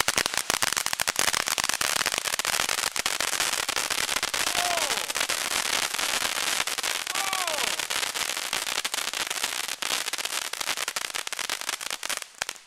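Volcano 1205 Wolf ground firework fountain burning, with a dense, continuous crackle of small pops from its crackling stars. Two short falling whistles come through the crackle about halfway. The fountain stops suddenly near the end.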